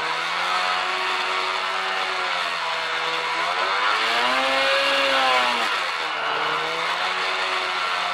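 Snowmobile engine running under way. Its pitch climbs from about three and a half seconds in, peaks around five seconds, and drops back again, over a steady hiss.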